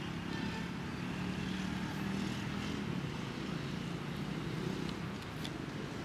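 Low, steady engine drone of a motor running in the background, with a couple of faint clicks about five seconds in.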